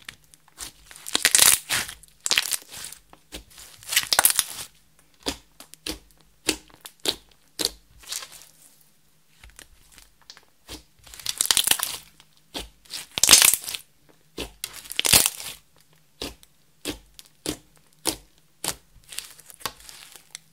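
Hands kneading, folding and stretching thick glossy slime: sticky squelches with dense crackling and popping clicks. The loudest squeezes come in waves a few seconds apart, with quieter single pops between.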